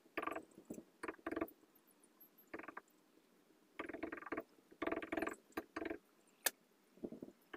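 Faint, intermittent handling noises: short bursts of scraping and rattling as hands work at the bottom entrance of a wooden beehive, with a sharp click about six and a half seconds in.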